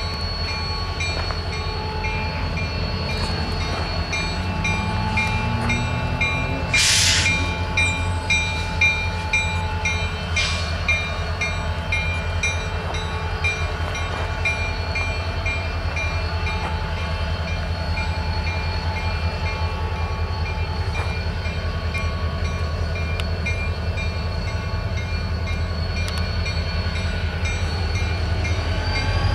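Diesel freight locomotives, an EMD SD40-2 leading an SD60, running with a steady deep engine rumble and a whine over it. The engine pitch rises briefly a few seconds in, two short hisses of air come about 7 and 10 seconds in, and a whine starts rising at the very end.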